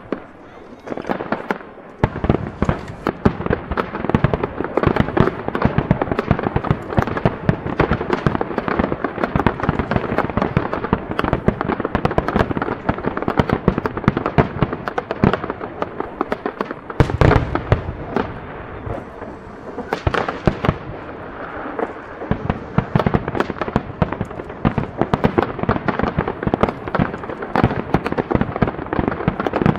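Fireworks display: aerial shells bursting one after another in a dense, continuous run of bangs, with an especially heavy bang a little past halfway.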